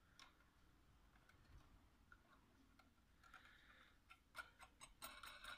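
Near silence, with a few faint small metallic clicks in the last second or so as a steel washer and nut are slid onto a threaded steel rod.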